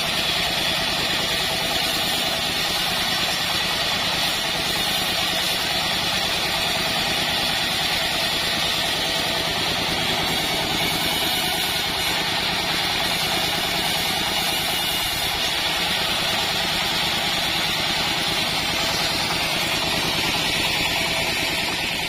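Band sawmill running steadily, its blade sawing hibiscus (waru) wood as boards are fed through.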